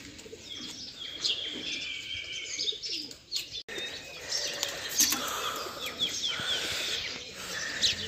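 Birds chirping and calling: many short, high chirps and trills, with a brief break about three and a half seconds in.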